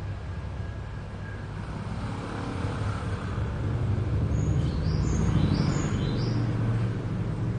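A motor running with a low, steady rumble that grows louder toward the middle, while a bird chirps several times in short rising notes about halfway through.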